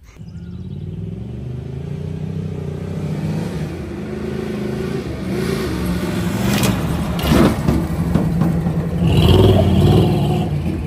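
Jeep CJ7 engine pulling hard under acceleration and growing louder, with a few sharp knocks and rattles about seven seconds in as the leaf-sprung Jeep is driven over rough dirt at speed.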